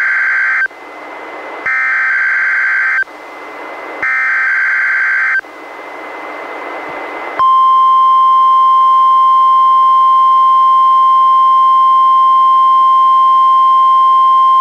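EAS SAME alert header on NOAA Weather Radio: the end of one burst, then two more bursts of shrill digital data screech about a second apart, with radio static hiss between. About seven seconds in, the steady 1050 Hz weather radio warning alarm tone begins and holds. This is the sequence of a Required Weekly Test.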